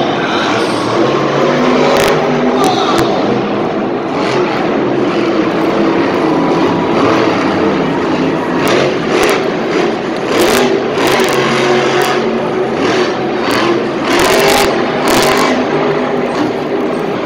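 Monster truck engine revving hard and loud as the truck drives across the dirt arena floor, with a run of sharp cracks in the second half.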